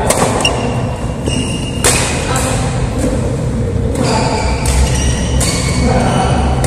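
Badminton rally: several sharp racket strikes on the shuttlecock, the first a jump smash, with short squeaks of shoes on the court floor over a steady low hum of the hall.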